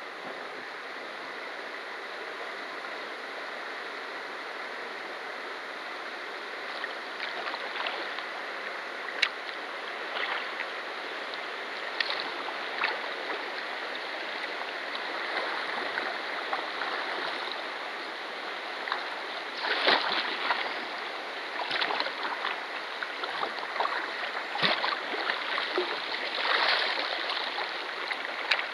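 River rapids rushing over rocks: a steady hiss of white water. From about seven seconds in, irregular splashes and sloshes of water close by around the kayak join it, most frequent near the end.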